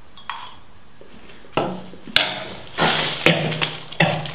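A person gagging and retching repeatedly into a plastic bag, a series of abrupt heaves about half a second apart, set off by eating pickled onions.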